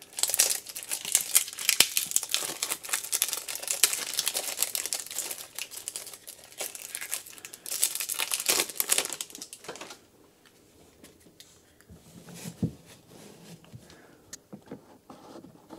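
Packaging of a trading card deck crinkling and tearing as the deck is opened, a dense crackle for about ten seconds. After that it goes quiet apart from soft handling of the cards and a light tap.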